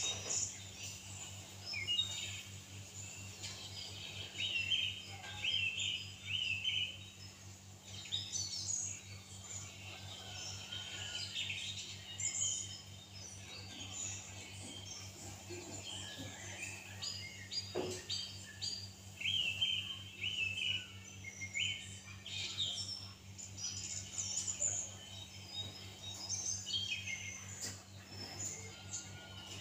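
Many small songbirds chirping and twittering in quick, scattered calls, over a steady low hum.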